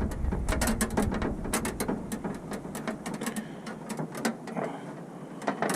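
Pipe cutter being turned around a brake line, its cutting wheel and rollers making irregular clicks and scraping as it works into the tube.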